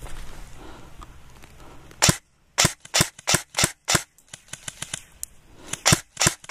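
Airsoft guns firing single shots as sharp snaps. About two seconds in come six loud close shots at roughly three a second, then a string of fainter, more distant shots, then two more loud shots near the end.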